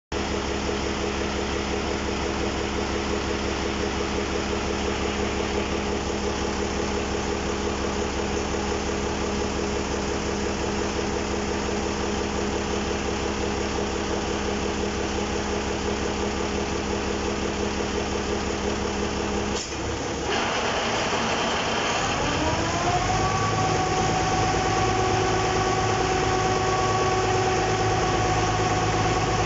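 Kirloskar diesel engine on a ferry boat running steadily. About two-thirds of the way through the sound changes abruptly; a tone then rises over a couple of seconds, and the engine settles at a steady, slightly louder, higher-pitched run.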